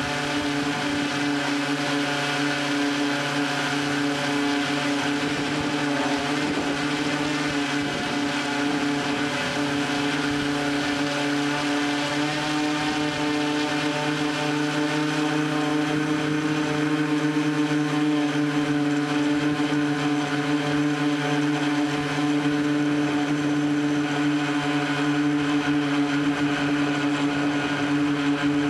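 Tricopter's three brushless motors and propellers running in flight, a steady drone that holds its pitch and grows slightly louder about halfway through, heard from the onboard camera.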